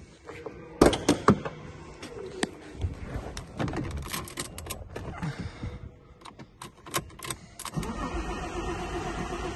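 Sharp clicks and clunks of the car's door lock and central locking being worked with the key, then the key going into the ignition. Near the end the starter cranks the Alfa Romeo GTV's V6 steadily without it firing: the car is struggling to start.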